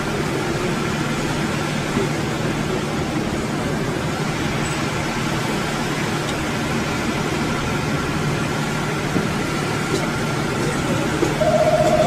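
Tour boat's engine running at a steady drone, with a constant low hum. A brief steady tone sounds near the end.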